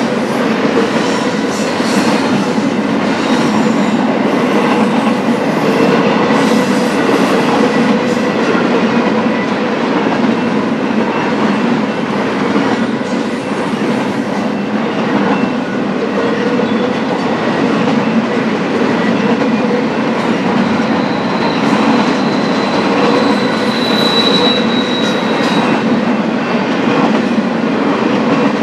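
Long BNSF intermodal freight train rolling past: a steady rumble and rattle of steel wheels on rail. A thin, high wheel squeal rises for several seconds about three-quarters of the way through.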